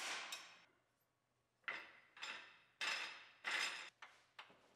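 Short metallic clanks and rattles of tools and bolt hardware as a shock absorber is bolted back up. They come in four brief bursts from about a third of the way in, with a couple of faint clicks near the end.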